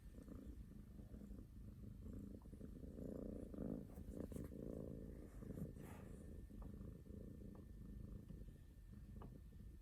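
A sleeping house cat snoring: a faint, low rumble that grows louder for a couple of seconds around the middle.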